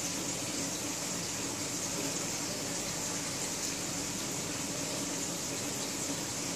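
Aquarium filter water running in the tank, a steady even splash and hiss with no breaks.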